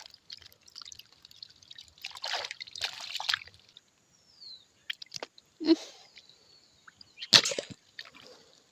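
Water sloshing and splashing in short, irregular bursts, the loudest near the end.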